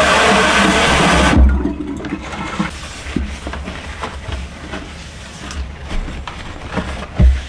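Kitchen faucet running into a stainless steel sink, shut off abruptly about a second and a half in. Then the sink is wiped with a paper towel: faint rubbing and light taps, with one louder thump near the end.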